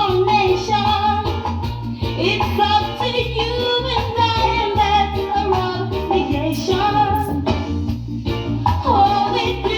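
Reggae song with a sung vocal over a steady, pulsing bass line.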